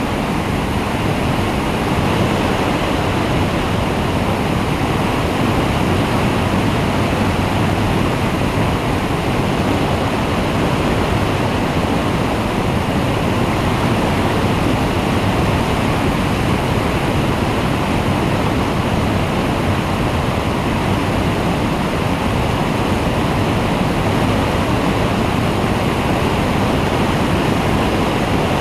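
Steady rush of wind over the microphone of a flex-wing microlight trike in powered flight, with the engine and propeller blended into the noise.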